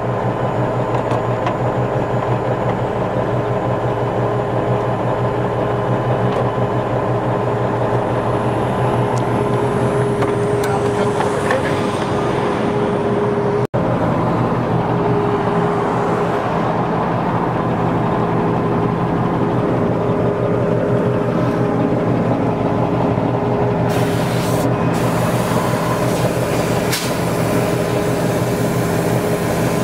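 Kenworth T660 semi truck's diesel engine idling steadily, with a momentary break about halfway and a few sharp clicks late on.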